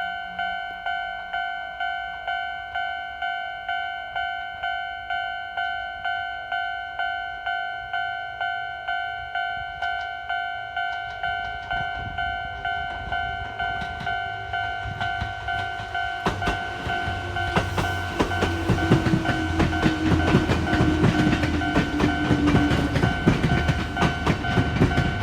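A Japanese level-crossing warning bell dings steadily, about one and a half times a second. From about halfway through, an electric train approaches and runs past, getting louder, its wheels clacking over the rail joints with a low rumble and a hum.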